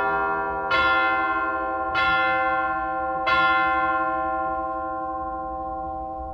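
Chimes struck one note at a time, each ringing on and slowly dying away. Three strikes about a second and a quarter apart, the last left to ring out.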